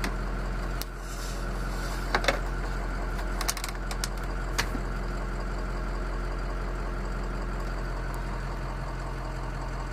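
Ford 6.0 L Powerstroke V8 turbodiesel idling steadily, with a few sharp clicks in the first half.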